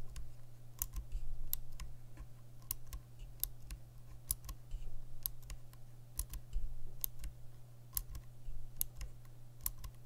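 Cherry MX Blue and Gateron Blue clicky mechanical keyboard switches pressed one at a time in turn, each giving a sharp, crisp click, about one to two a second. The Gateron Blue clicks are a little louder.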